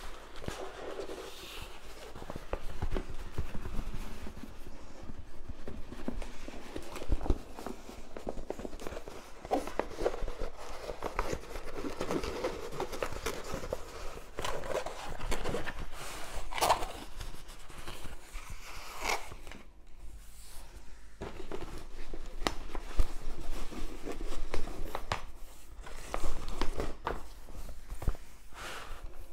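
Large diamond painting canvas with its plastic cover film rustling and crackling irregularly as it is unrolled and smoothed flat by hand.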